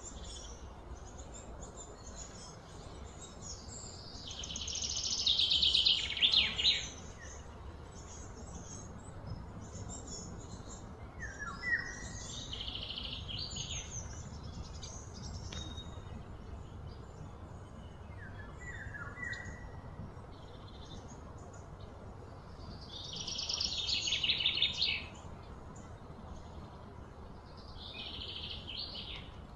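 Outdoor wildlife sounds of birds and insects: short chirps every several seconds, and two loud, fast-pulsing high calls that swell and then stop, one about five seconds in and one about twenty-four seconds in.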